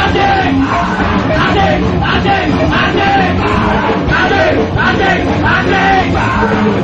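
A metal band playing live at full volume: distorted guitars and pounding drums with a vocalist shouting the lyrics in short repeated phrases.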